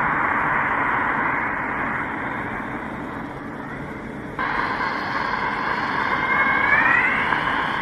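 Spaceship sound effect: a steady rushing hiss that fades a little, jumps suddenly louder and brighter about halfway through, and has a rising whistling tone near the end.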